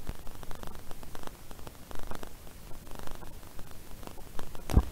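Faint steady hiss with scattered small clicks and soft rustles: room tone through an open microphone.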